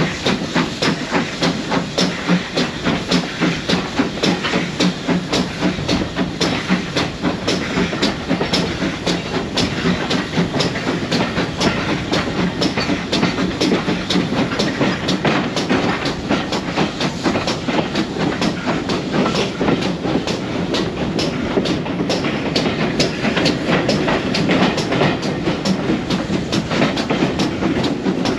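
GWR Modified Hall 4-6-0 steam locomotive No. 6990 hauling coaches, heard from a carriage window: a steady rhythm of exhaust beats over the rumble and clatter of wheels on the track. The beats come faster and run together later on as the train picks up speed.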